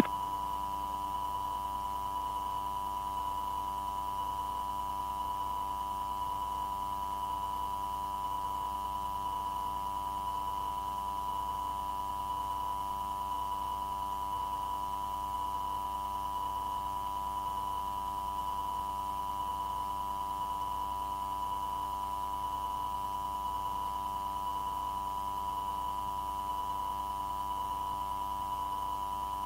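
Steady electronic tone on an air traffic control radio recording between transmissions. A constant pitch near 1 kHz is joined by a fainter higher tone and a low hum, all unchanging.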